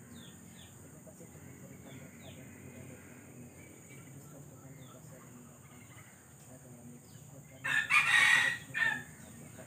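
A rooster crows once, loudly, near the end: a long call ending in a short final note. Faint, short, high chirps of small birds come and go before it.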